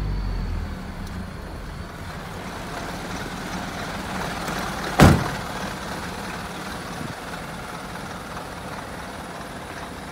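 Isuzu Forward truck's diesel engine idling, its low sound dropping back over the first second. About five seconds in, one loud, short bang that fits the cab door being shut.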